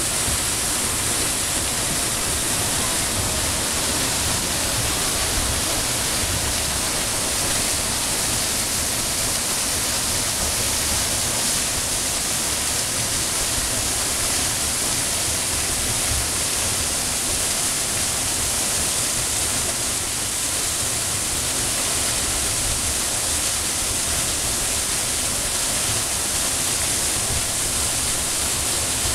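Waterfall: a steady, unbroken rush of falling water, with a bright hiss on top.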